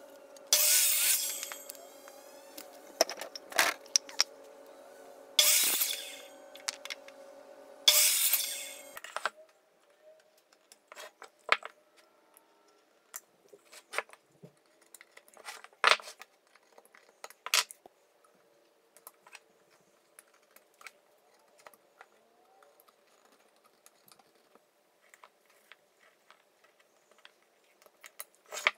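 A stationary woodworking power tool runs with a steady hum and makes three short, loud cuts through wood, then shuts off after about nine seconds. After that come scattered small clicks and knocks of wood and tools being handled.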